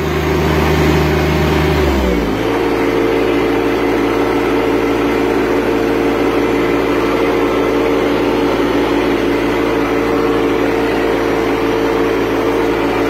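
John Deere 1025R compact tractor's three-cylinder diesel engine running at high revs. About two seconds in its note dips and shifts, then it holds steady.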